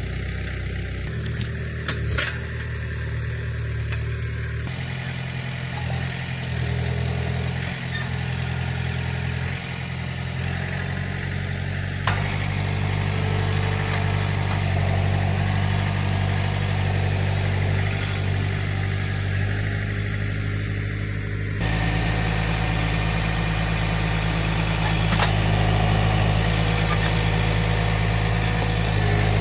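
John Deere 4044M compact tractor's diesel engine running steadily while it works the front-loader grapple. Its note and level shift abruptly a few times.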